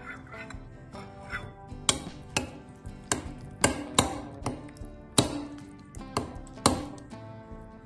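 About ten sharp, irregular knocks of kitchen utensils, some with a short ring, over soft background music.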